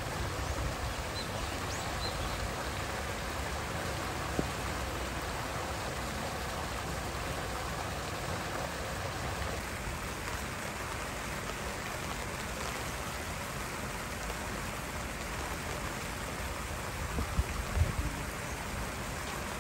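Steady hiss of running or falling water around the seal enclosure's pool, with a few low thumps near the end.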